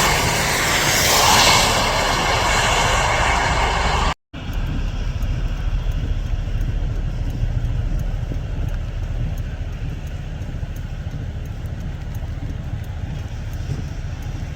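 Road traffic on a rain-soaked road: vehicles passing with loud tyre hiss and spray. After a brief cut about four seconds in, a steady low rumble of traffic continues.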